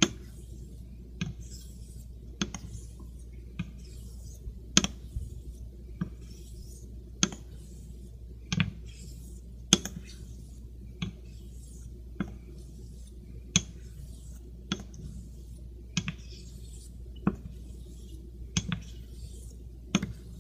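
Greaves near-wedge straight razor being honed on a wet Shapton Pro waterstone while setting the bevel. A faint scratchy rub of steel on stone runs under a sharp click about every second and a quarter, as the razor is flipped on its spine between strokes.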